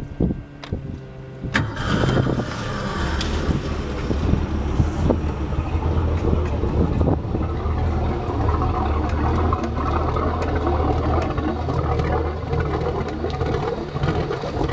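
1987 Ski Centurion ski boat's inboard engine started: a brief burst of starter cranking, and the engine catches within about two seconds. It then settles into a steady idle with a strong low hum.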